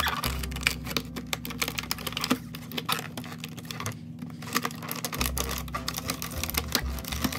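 Plastic blister packaging handled and worked open by hand: a dense run of irregular crackles and clicks.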